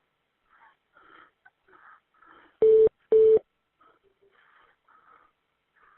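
Two short steady telephone-line beeps on one pitch, about half a second apart and roughly midway through, over faint muffled voices in the background of a call on hold.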